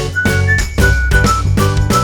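Background music: a bright, jingly tune with bell-like notes over a steady beat.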